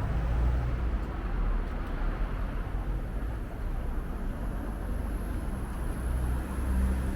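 City street traffic: a steady low rumble of passing vehicle engines and tyre noise, with a heavier engine running close by at the start and again near the end.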